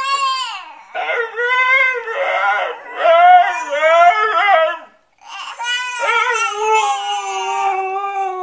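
Siberian husky "talking": a run of short yowls that swoop up and down in pitch. About five seconds in there is a brief break, then one long howl that slowly falls in pitch.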